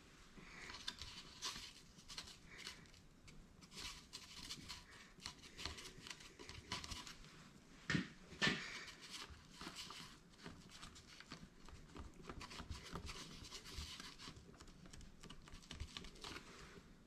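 Quiet close hand-work noises: scratching, crinkling and small clicks, with two sharp knocks about eight seconds in.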